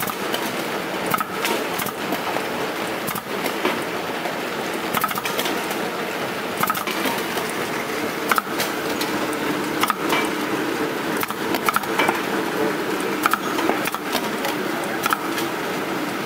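CD/DVD sorting machine running steadily, with irregular sharp plastic clicks and clacks as discs pass through its mechanism and drop into the bin.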